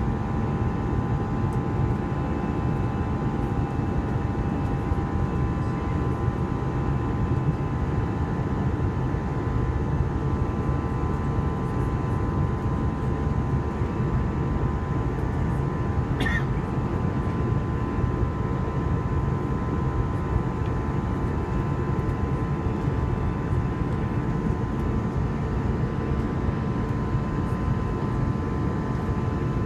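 Steady cabin noise of an Airbus A321 in its climb, heard from inside the cabin: a low rush of engines and airflow with several steady whining tones above it. One brief click about sixteen seconds in.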